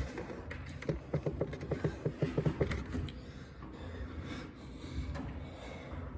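A person's brief laugh: a quick run of short pulses starting about a second in and lasting about two seconds.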